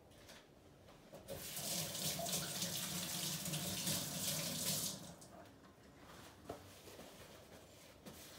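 Kitchen faucet running into the sink while hands are rinsed under it. The water starts about a second in and is shut off abruptly about four seconds later.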